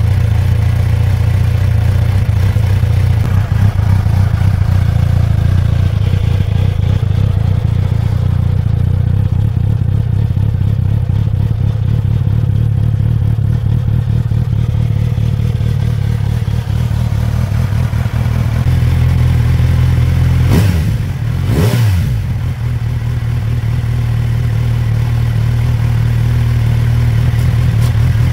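Kawasaki Z900RS inline-four engine running loud and unmuffled, its stock silencer removed, idling steadily. A little past two-thirds of the way through it gets one quick rev up and back down, and it cuts off abruptly at the very end.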